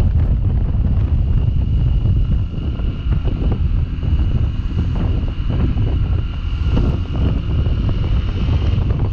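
Wind buffeting the microphone of a riding motorcycle, a Sinnis Terrain 125, with the bike running underneath and a thin, steady high tone over most of it.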